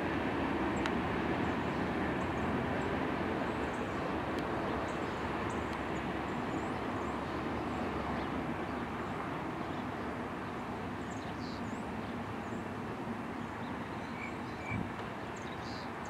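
Freight train cars rolling past: a steady rumble of wheels on rail that slowly fades.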